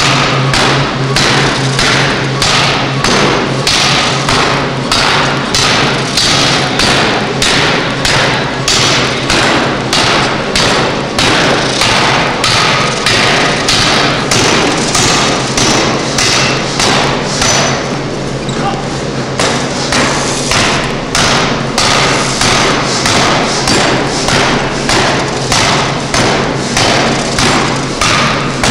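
Pneumatic forging hammer striking over and over at about two blows a second over the steady hum of its drive. The blows pause briefly a little past the middle, then resume.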